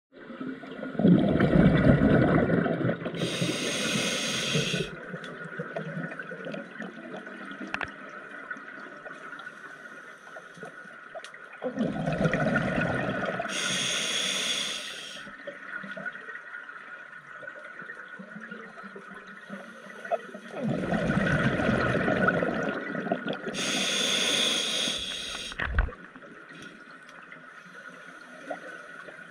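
Scuba diver breathing underwater through a regulator: three breaths about ten seconds apart. Each is a loud rush of exhaled bubbles followed by a shorter, higher hiss from the regulator.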